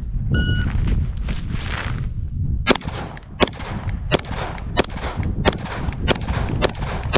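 A shot timer's start beep, then about two seconds later a Glock Pistole 80 9mm pistol fires a steady string of eight shots, roughly one every two-thirds of a second. The string is part of a timed ten-shot drill.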